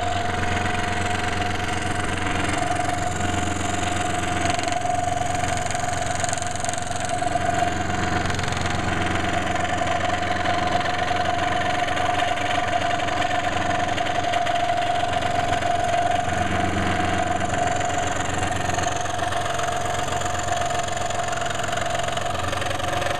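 Electric saw running steadily with a constant hum, cutting curved jigsaw-puzzle pieces out of a wooden board.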